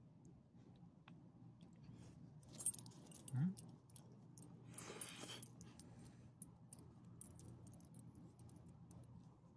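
Small dog's metal bone-shaped ID tag and leash clip jingling with light ticks as it moves on asphalt. A short, loud rising sound comes about three and a half seconds in, and a brief rustling burst about five seconds in.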